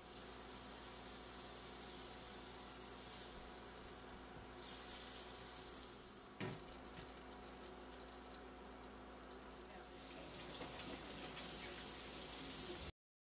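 Butter sizzling and foaming as it melts in a hot nonstick pan, a steady hiss with a single knock about six seconds in. Near the end the sizzle grows a little louder as sliced onion goes into the butter.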